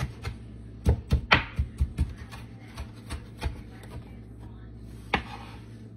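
Chef's knife chopping fresh cilantro on a wooden cutting board: a quick run of sharp knocks about a second in, a few spaced-out knocks after, and one last hard knock near the end.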